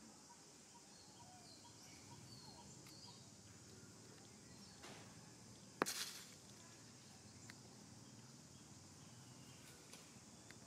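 Faint outdoor ambience: a steady high insect hum with a few faint bird chirps. One sharp click a little under six seconds in.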